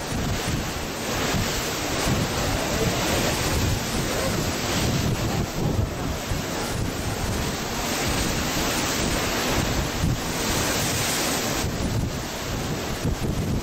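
Wind buffeting the microphone over a steady rush of sea water.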